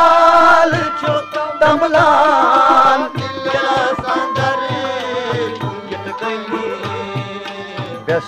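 Kashmiri song music: tabla strokes keep a steady rhythm under a held, wavering melody line.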